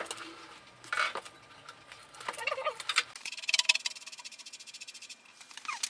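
Clicks and knocks of hand tools and metal parts being handled on an air hammer's flywheel shaft and bearing, with a fast, even run of ticks for about two seconds in the second half.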